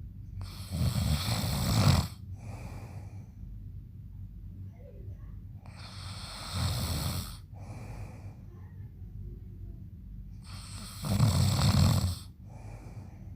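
A man snoring loudly in a steady rhythm: three long, rumbling snores about five seconds apart, each followed by a shorter, softer breath. The middle snore is weaker than the other two.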